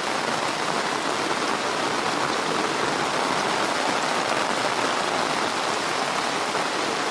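Heavy rain falling steadily, pattering on surfaces and the ground.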